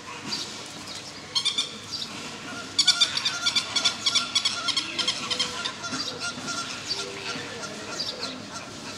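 Animal calls: rapid high-pitched chirping and chattering, densest from about three to five seconds in, with a few lower drawn-out calls underneath.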